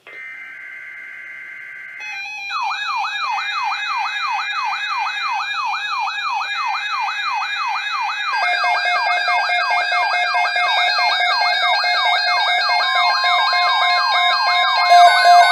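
Weather alert radios going off for a tropical storm watch. A short burst of weather-radio data tones is followed by the radios' alarms sounding together: a siren-like tone falling about three times a second, with other tones over it. A steady lower tone joins about eight seconds in and turns into loud beeps near the end.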